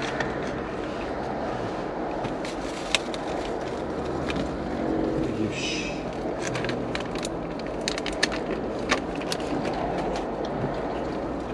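Plastic snack wrapper and plastic shopping bag crinkling and rustling in short sharp bursts as food is unwrapped. Under it runs a steady low rumble inside a car.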